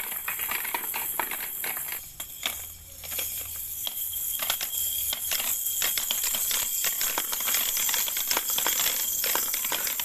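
Plastic balls rolling and clattering down the spiral plastic ramps of a ball-drop tower toy: a dense run of light clicks and rattles, with a brief lull about two seconds in.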